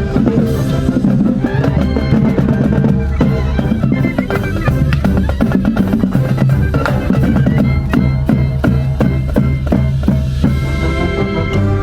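High school marching band playing live: held brass notes over a busy drum line of snare and bass drums with rapid strokes.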